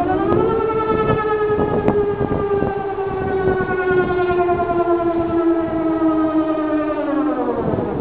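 Whelen WPS-2705 electronic outdoor warning siren sounding the Danish warning signal in a siren test. The tone holds high, sinking slowly in pitch, then falls away near the end.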